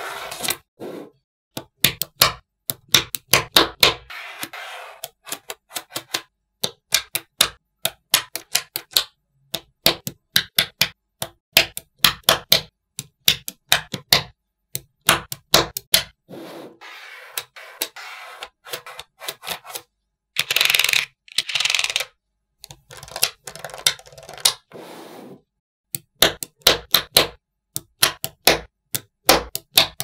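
Small steel magnetic balls clicking and clacking together in quick runs as they are laid down and snapped into place by hand, with stretches of scraping rattle between the runs, the loudest a little past the middle.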